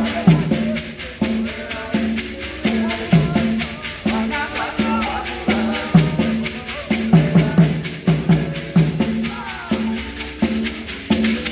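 Mbira ensemble playing: hosho gourd shakers keep a fast, even rhythm over mbira notes sounding from inside calabash resonators and beats on a tall ngoma drum, with voices singing along.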